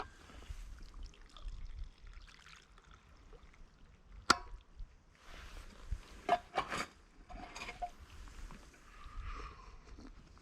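Hot tea being poured from a flask into a cup, with small clicks and knocks from handling the flask and one sharp click about four seconds in.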